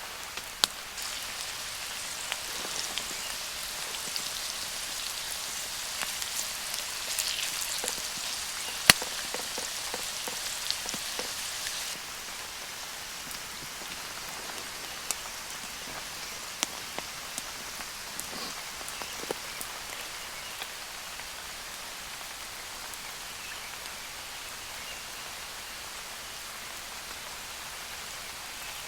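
Steady rain falling in woodland, with scattered sharp drips and ticks. The sound steps down abruptly about twelve seconds in and then continues as an even hiss.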